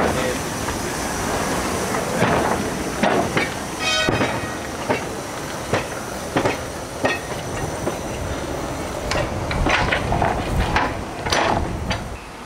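Narrow-gauge steam tank locomotive running light at low speed, with steam hiss and the wheels clicking and knocking irregularly over rail joints and points. A brief high squeal comes about four seconds in.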